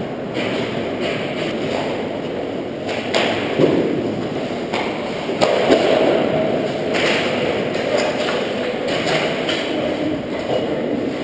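Ice hockey scramble at the net: skate blades scraping and carving the ice, broken by repeated sharp clacks of sticks and puck striking.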